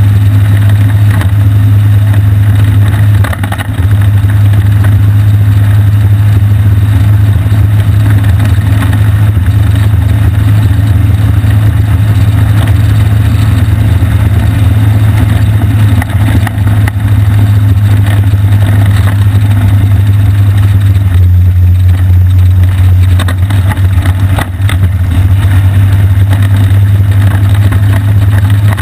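Off-road go-kart engine running steadily under way, a loud constant low drone whose note drops a little about three quarters of the way through.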